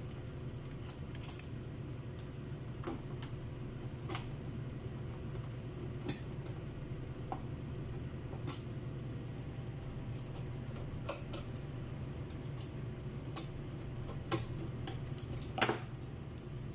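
Scattered light clicks and clinks of hands working on the Eschmann TD 311 electrosurgical unit's front panel and case as it is being opened, over a steady low hum; the loudest click comes about a second before the end.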